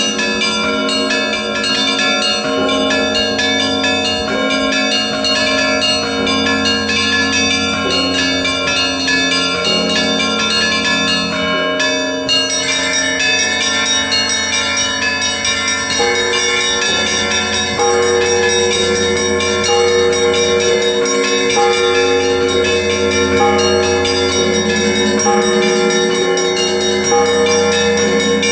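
Russian Orthodox monastery bells rung together in a continuous peal, a quick repeating rhythm on the smaller bells over the long ringing of the larger ones. The ringing grows louder and fuller about two-thirds of the way through.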